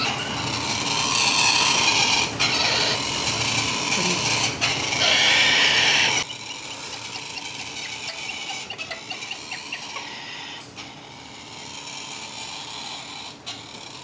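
Triton cockatoo chicks making harsh, rasping food-begging calls, loud for the first six seconds. After a sudden drop, quieter rapid, rhythmic begging sounds follow while a chick is fed from a syringe.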